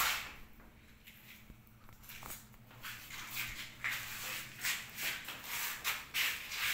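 Shuffling footsteps and rustling handling noise, irregular and every half second or so, after a sharp click at the very start.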